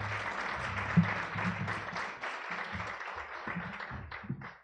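Audience applauding, thinning to a few last claps near the end.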